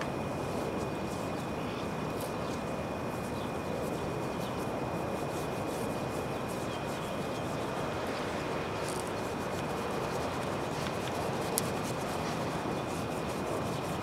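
Rooftop packaged air-conditioning unit running, a steady fan whoosh with a constant high whine, and one faint sharp click about two-thirds of the way through.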